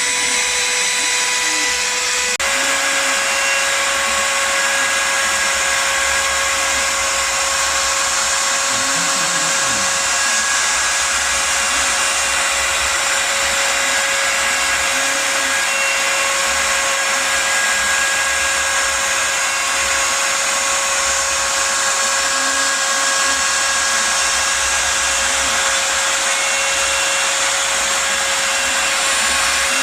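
Spindle of a homemade CNC router running steadily while cutting, a constant whine over a hiss. Its pitch steps up slightly about two seconds in.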